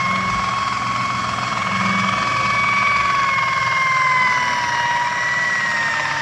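Handheld electric rotary polisher running with its pad on car paint, a steady high motor whine that dips slightly in pitch near the end.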